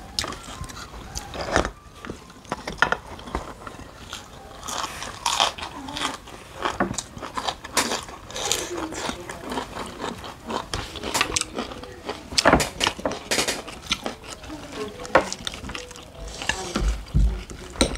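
Close-up eating sounds from two people eating by hand: irregular crunching and chewing as raw green vegetables are bitten, with scattered clicks.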